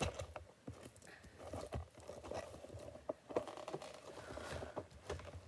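Faint handling noise from a phone held in the hand: scattered light clicks, taps and rustles.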